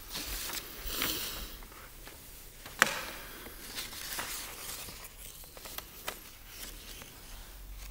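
Rustling and soft handling noises close to the microphone, as a person settles in front of it, with one sharp click about three seconds in and a few fainter ticks after.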